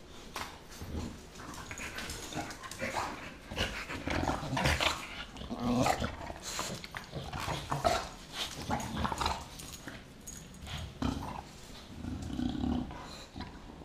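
An American bulldog puppy and an English bulldog play-fighting close up, growling in irregular bursts amid noisy mouthing and scuffling.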